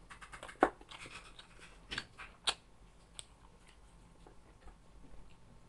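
A person eating close to the microphone: chewing with short, sharp clicks and crackles. The loudest come in the first three seconds, then they thin out.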